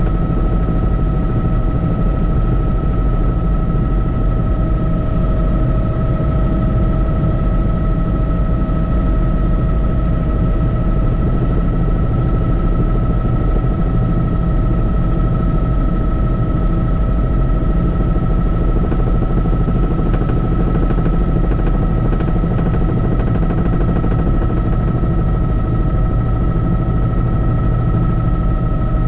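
Helicopter in flight: loud, steady rapid chop of the rotor with a constant high whine running through it.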